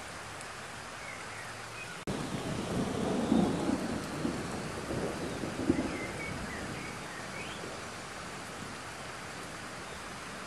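Steady rain falling on a pond's surface. About two seconds in, a rumble of thunder breaks in suddenly, peaks twice and dies away over the next several seconds.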